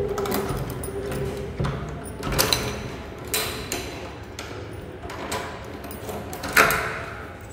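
A key turning in a metal door lock, with latch clicks and a rattle of the handle and key tag. Then a few scattered sharp clicks and knocks; the loudest comes near the end.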